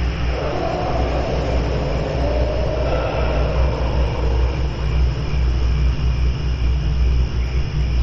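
Ghost sound effect: a deep, steady rumbling drone with a wavering moan that swells about half a second in and fades out by about five seconds.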